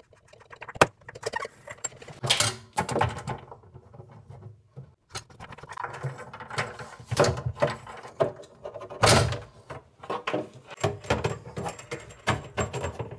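Old bathroom faucet's water supply line nuts and plastic retainers being unscrewed by hand from its threaded brass tailpieces: scattered clicks, clinks and knocks of metal and plastic parts being handled, with a sharp click about a second in.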